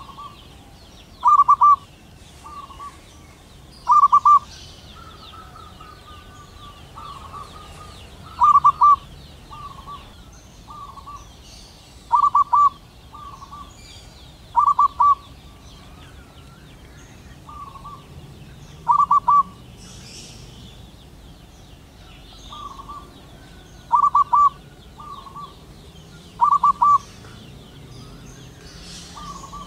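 Male zebra dove cooing its song: short, rippling bursts of notes, loud ones every few seconds with softer notes between, calling to a female.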